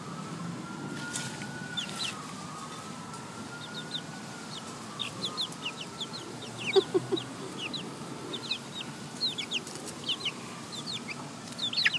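Young chickens peeping in short, high, falling chirps as they peck at worms, the peeps coming thicker in the second half, with a few lower clucks. Underneath, a faint siren wails slowly up and down.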